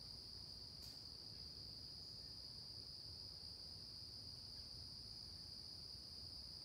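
A faint, steady, high-pitched insect chorus, trilling without a break, with one soft tick about a second in.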